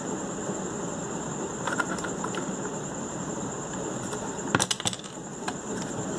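Clicks and cracks of the plastic torch housing as hands pry its halves apart, with a sharp cluster of clicks about four and a half seconds in. Under it runs a steady background hiss with a faint high-pitched whine.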